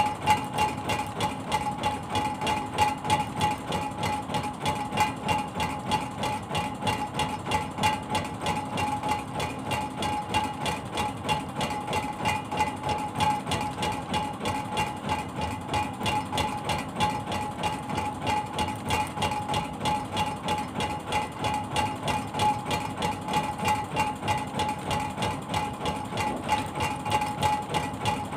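Fishing boat's inboard engine running steadily, with an even, fast pulsing beat.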